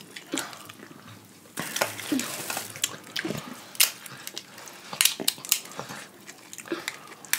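Eating sounds from a crab seafood boil: scattered sharp clicks and cracks of shell and utensils, with wet mouth sounds and a rustling stretch about a second and a half in.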